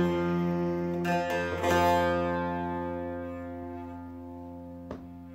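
Bağlama (saz) strummed a couple of last times about a second in, then the chord rings on and slowly dies away. A small click sounds near the end.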